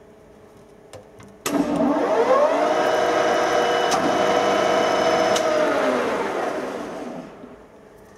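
Cazeneuve HB 575 centre lathe's spindle starting with a clunk about a second and a half in and running up to speed. The headstock whines with several steady tones, then the lathe winds down to a stop with falling pitch near the end.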